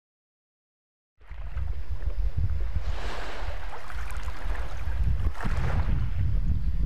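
Wind buffeting the microphone on a shoreline, with small waves washing in twice, starting abruptly about a second in.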